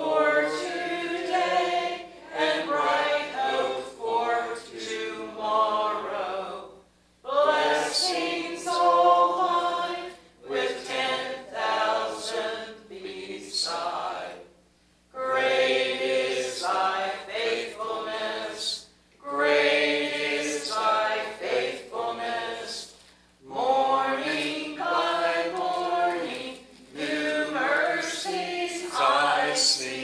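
A group of voices singing a hymn in phrases of a few seconds each, with short breaks between the lines.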